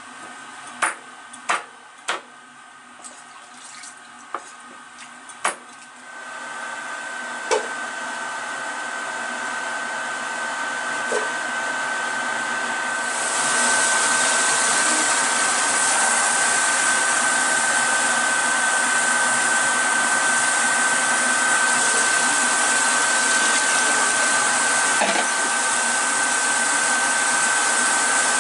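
Cleaver chopping through corn cobs on a chopping board: a series of sharp chops in the first several seconds. Then a steady rushing noise with a thin whine sets in and grows, stepping louder about halfway through.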